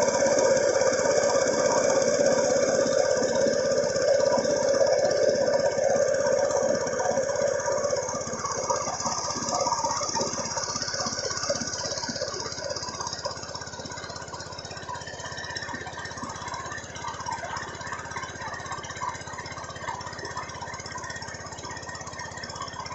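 A small engine running with a steady drone that fades away over the first half, leaving a fainter steady hum.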